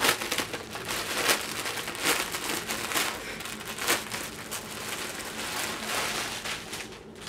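Clear plastic garment bag crinkling and rustling as it is handled and opened to take out a dress, with sharp crackles about once a second. It dies down near the end.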